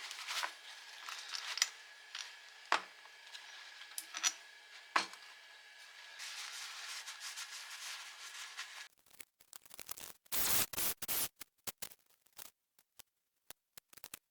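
Hand work on tractor engine parts: a few sharp clicks and rubbing over a faint steady hiss. After about nine seconds come short, choppy bursts of noise.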